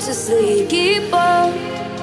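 Background pop song: a sung melody over instrumental accompaniment.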